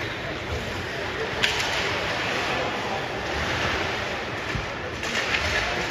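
Ice hockey skate blades scraping and carving across rink ice, with a sharp click about a second and a half in.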